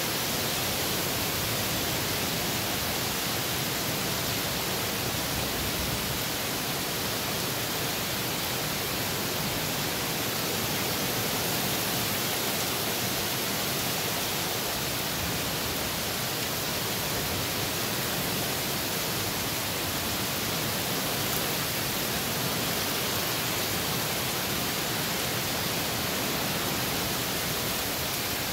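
Heavy rain falling steadily, an even hiss that holds at one level throughout.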